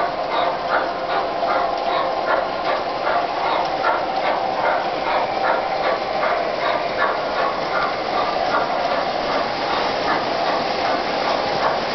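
MTH O-gauge model trains running on three-rail track: a steady hum from the locomotives and their sound systems, with a quick, regular clicking from the wheels over rail joints.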